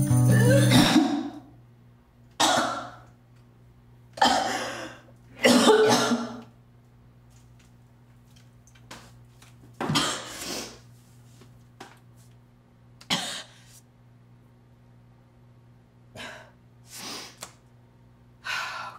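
A woman retching and coughing over a toilet in a series of short bursts, with breaths between them: she is making herself vomit. An acoustic guitar song ends about a second in.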